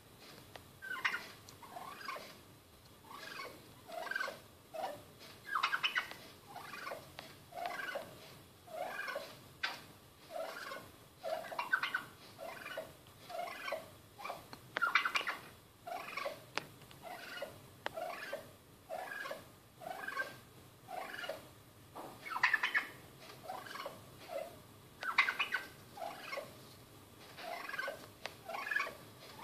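Tom turkey calling at its own reflection in a mirror, as if at a rival: a steady run of short call notes, one or two a second, with several louder, higher calls mixed in.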